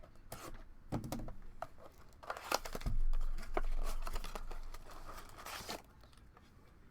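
Plastic wrap crinkling and tearing as a sealed trading-card blaster box is opened by hand, with irregular crackles and clicks, busiest in the middle.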